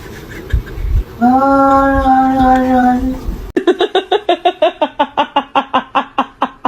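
A voice holds one steady sung note for about two seconds. After an abrupt cut, it gives a fast run of short repeated pulses, about eight a second.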